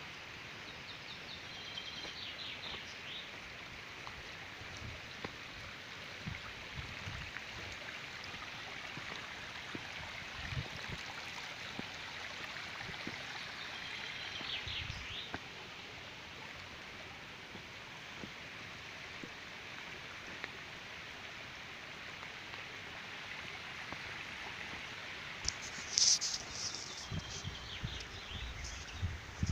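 Small stream flowing with a steady rushing sound, while a songbird sings a short song of quick notes three times, about twelve seconds apart. Near the end comes a louder, higher bird call.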